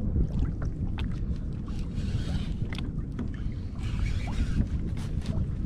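Wind rumbling on the microphone over water moving around a kayak on open sea, with scattered light clicks and knocks and two short splashy hisses.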